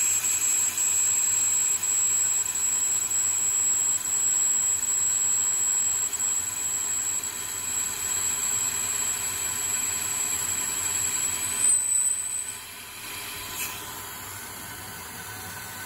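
Lathe finish-turning D2 tool steel at 625 RPM: a steady high-pitched squeal from the cut over the hiss of spray-mist coolant. About twelve seconds in, the squeal rises slightly and stops, and a quieter hiss of the mist and running spindle carries on.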